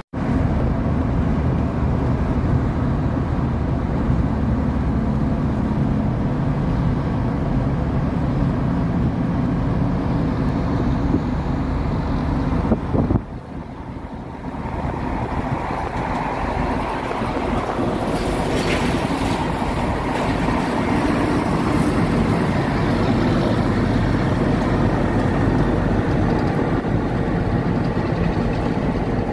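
Steady road and wind noise from inside a car moving on an expressway, with a low engine drone from heavy trucks running alongside. The sound drops out for about a second near the middle and then picks up again.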